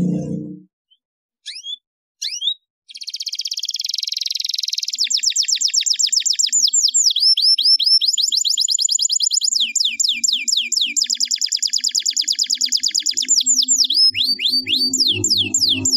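Domestic canary singing: a few short chirps, then a continuous song of fast high trills and rolls broken by runs of quick falling whistled notes. A low drone comes in under the song near the end.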